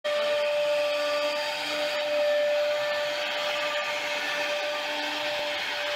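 CNC router spindle routing a wooden door panel: a steady high whine with a continuous hiss of the bit cutting the wood.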